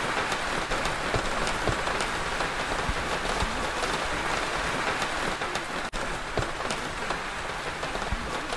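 Steady recorded rain falling on a surface, a dense patter of drops. It dips out for an instant about six seconds in.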